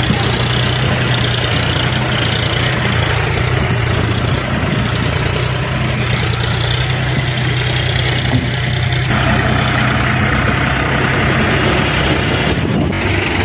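Diesel tractor engine running steadily at a low, even pitch, growing a little brighter in tone about nine seconds in.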